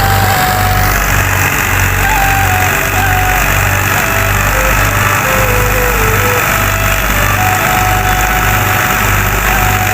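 Background music with a steady, pulsing bass beat and a simple melody that steps up and down.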